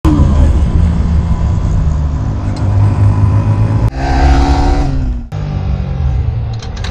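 Motorcycle engines running hard in three short pieces cut together. In the middle piece, about four seconds in, the engine note falls as the bike slows.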